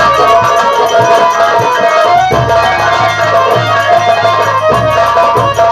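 Live folk-theatre band music: hand drums beating a quick, even rhythm under a keyboard melody of held notes, with the low notes changing twice.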